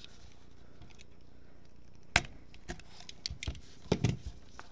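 Small cardboard trading-card box being handled and opened with gloved hands: one sharp tap about two seconds in, then a few faint clicks and a soft knock near the end.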